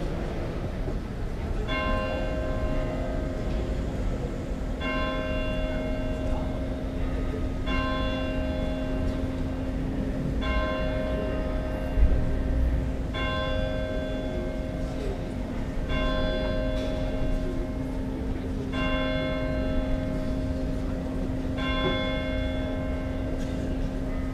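A single large swinging church bell of the Frauenkirche begins ringing about two seconds in, striking about every three seconds, its low hum note sounding on between strikes.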